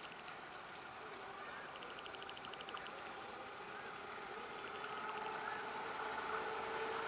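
Insects, crickets among them, trilling with a fast, even pulse, along with short buzzy bursts. Underneath, a steady mechanical hum grows gradually louder over the second half.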